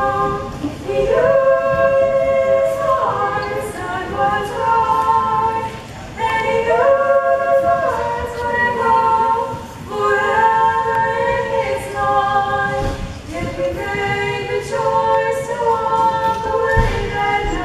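Small mixed choir of men and women singing a cappella in parts, in long held phrases with brief pauses between them.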